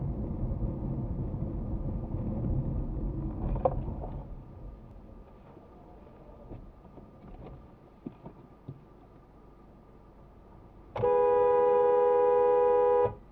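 Low engine and road noise of a car driving, louder for the first four seconds and then dropping away. Near the end a car horn sounds one steady, loud blast of about two seconds.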